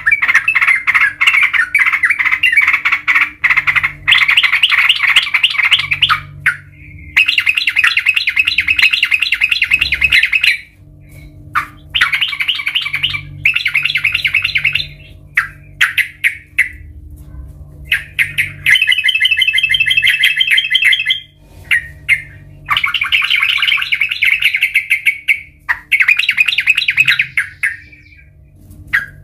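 Yellow-vented bulbul (trucukan) singing: repeated phrases of rapid notes, each one to three seconds long, with short pauses between, over a faint steady low hum.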